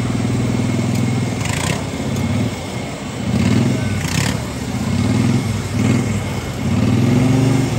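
Racing lawn mower engines idling, then revved up and down over and over, each rev rising and falling in pitch about once a second. Two short hissing blasts of a fire extinguisher, about a second and a half in and about four seconds in.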